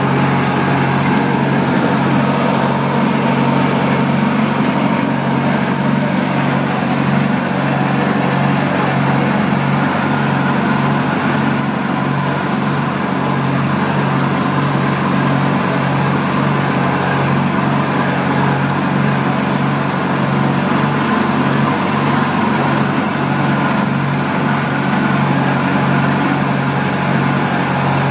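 A 1950 Massey-Ferguson tractor engine running steadily as the tractor drives across a field, an even low drone without revving.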